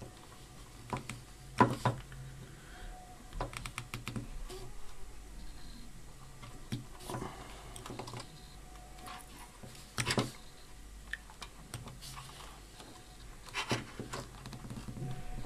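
Scissors snipping and scraping insulation off the ends of electrical wire: irregular small clicks and snips, the loudest about a second and a half in and again about ten seconds in.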